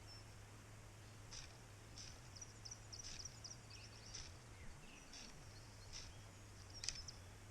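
Faint outdoor ambience: a bird gives short, high chirps every second or so, with a quicker run of chirps about three seconds in, over a low steady hum.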